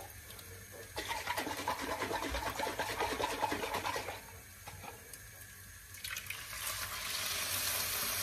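Water running from a kitchen tap into a nearly empty jar of tomato sauce and sloshing in it, to thin the sauce. A second steady run of water begins about six seconds in and cuts off abruptly.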